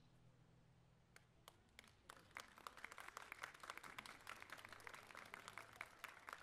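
A small audience clapping at the end of a song: a few scattered claps about a second in, building to steady applause by about two and a half seconds.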